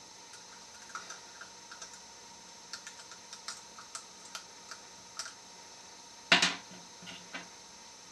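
Small, irregular metallic clicks and ticks of lock picks working the pins of a pin-tumbler gas cap lock under tension. About six seconds in, a louder, brief scrape or clatter of the tools in the lock.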